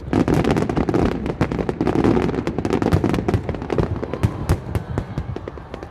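Aerial fireworks going off: a dense, rapid crackling of many small bangs, heaviest for the first three or four seconds and thinning out near the end.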